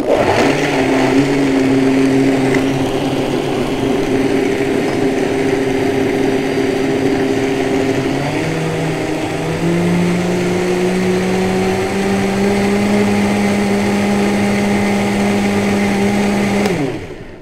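Countertop blender running, blending raw beet, kale, avocado and frozen cherries with almond milk into a smoothie. The motor's pitch steps up about eight to ten seconds in, and it cuts off shortly before the end.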